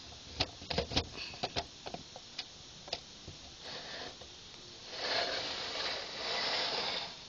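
Handling noise around a plastic brick model: a run of light clicks and taps, about eight in the first three seconds, then two stretches of soft rubbing.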